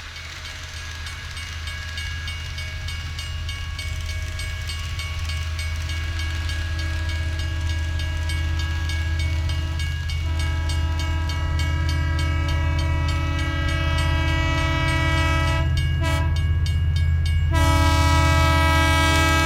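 A train running, with a heavy steady rumble and held horn-like tones above it, growing steadily louder as it approaches.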